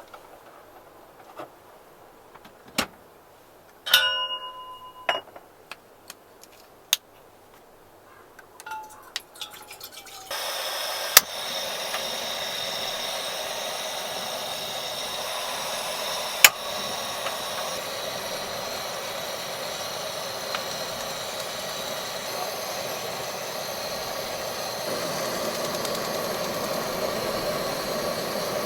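Scattered light clinks and knocks of camp gear being handled, one with a brief metallic ring, then a steady hiss that comes on suddenly about ten seconds in and keeps going, with a couple of sharp clicks in it, like a camp gas burner or food sizzling.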